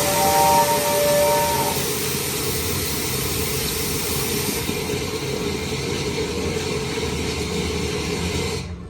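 Steam locomotive 5972 Hogwarts Castle blowing its whistle: a chord that stops about two seconds in, over a loud, steady hiss of venting steam. The hiss cuts off suddenly near the end.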